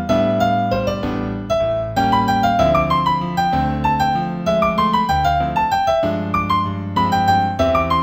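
Solo piano improvisation in C major at a moderate tempo: a light melody of single struck notes, each ringing and fading, over held low chords that change every second or two.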